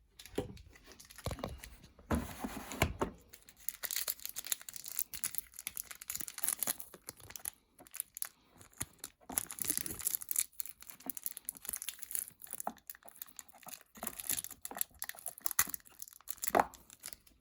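Packaging of Calgon water-softener tablets crinkling and tearing as it is opened by hand, in a string of irregular rustles and crackles.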